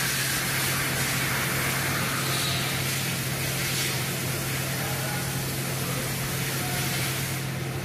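Steady machine noise: an even hiss over a constant low hum, with no distinct strokes or changes.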